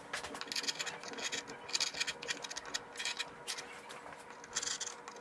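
A #3 wood-carving gouge paring wood in a series of short, irregular scraping cuts, rounding and smoothing the sharp corners of carved hair tufts.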